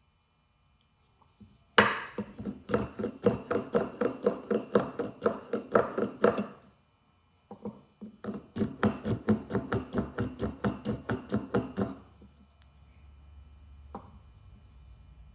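Japanese hand plane taking quick, short strokes along the chamfered edges of a wooden mallet head, about four or five strokes a second, in two runs with a short pause between them. The blade is only lightly cutting because it is not freshly sharpened.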